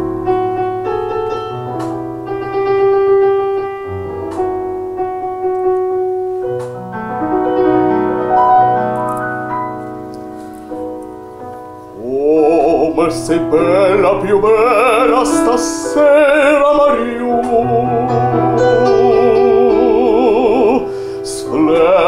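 A piano plays an introduction, and about twelve seconds in a man's operatic voice comes in singing an Italian song over it, with wide vibrato on held notes.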